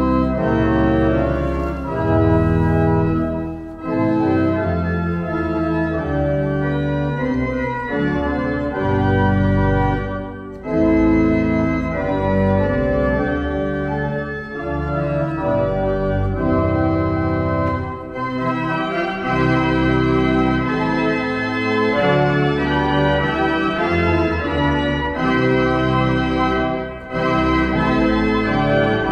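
Wegenstein pipe organ playing a piece in held, full chords, with short breaks between phrases.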